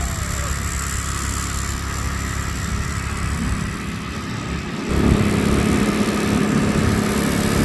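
Small motor scooter's engine running as it rides along, with wind rumbling on the microphone; the engine gets louder about five seconds in.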